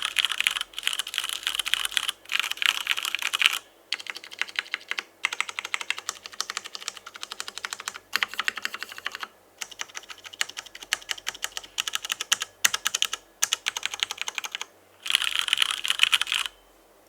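Mechanical keyboard with stock Cherry MX Hyperglide Brown tactile switches, top-mounted on an aluminium plate with PBT keycaps and no foam, being typed on in quick runs of keystrokes with brief pauses. The runs are heavier and louder at the start and again near the end, lighter in between, and the typing stops just before the end.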